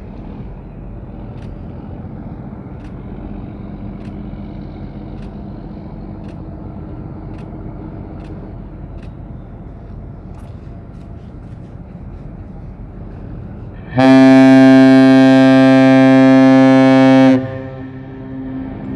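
Container ship's whistle sounding one long, deep, steady blast of about three and a half seconds, starting suddenly near the end and stopping abruptly, over a steady low background rumble.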